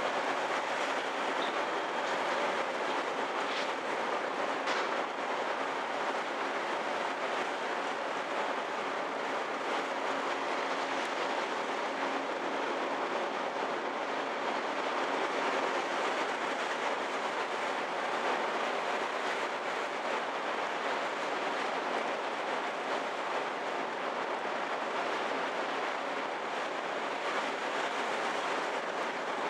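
Car ferry Kuniga under way: a steady, unchanging rumble of ship noise with a low engine hum running through it.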